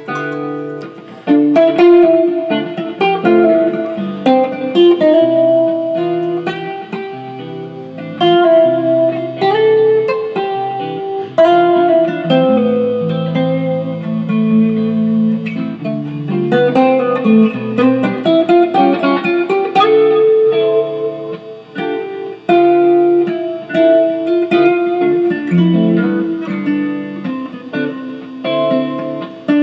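Guitar being played: a picked melody of single notes over held lower notes.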